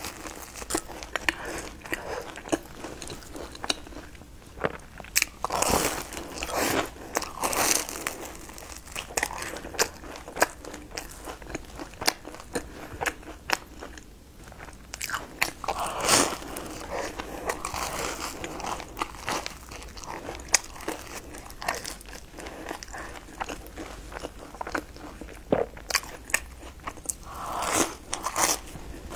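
Close mouth sounds of a person biting into and chewing a twisted, cream-filled bread pastry dipped in a white dip, with a steady stream of small clicks and a few louder bites, about six seconds in, around sixteen seconds in and near the end.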